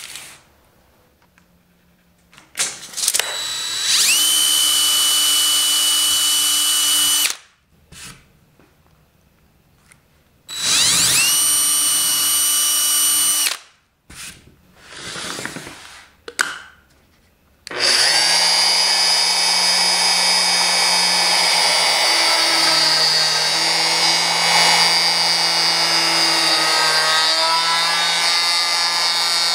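Electric drill boring mounting holes in an MDF waste board: two bursts of a few seconds each, each opening with a rising whine as the motor spins up, then running steady. A little over halfway through, a router starts and runs steadily to the end.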